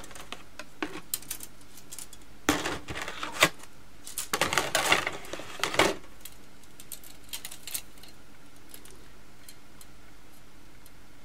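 Hard plastic model-kit runners clicking and clattering against each other as they are handled, in bursts over the first six seconds, then only a few light taps.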